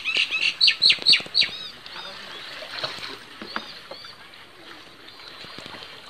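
A bird calling in a quick run of sharp, falling notes, about three a second, for the first second and a half, then fainter calls. Underneath, light splashing and handling of a wet cast net with fish in it.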